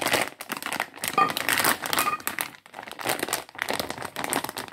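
A plastic packaging bag crinkling and crackling in the hands, in irregular bursts with a brief pause about halfway through, as a sealed motorcycle rear sprocket inside it is turned over.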